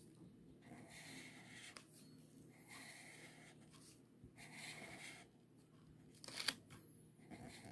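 Felt-tip highlighter rubbing back and forth across paper in several faint scratchy strokes as it colours in a box, with one sharp tap near the end.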